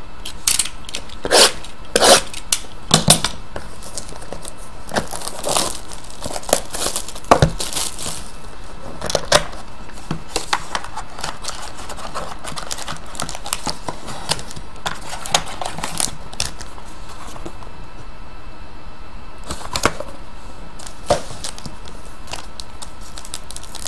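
Trading card packs and cards being handled: wrappers crinkling with scattered sharp crackles and rustles, busiest in the first ten seconds and sparser after.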